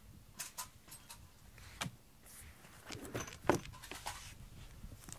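A cat getting up off a cardboard scratching pad and moving about: scattered light taps and clicks, with a louder thump about three and a half seconds in.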